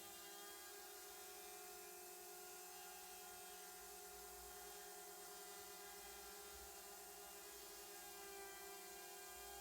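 A faint, steady hum made of several unchanging tones.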